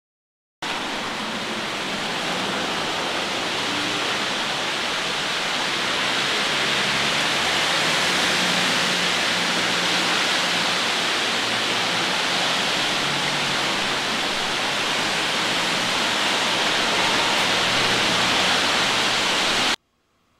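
Heavy rain falling, a loud, even hiss. It cuts in abruptly just after the start and cuts off sharply near the end.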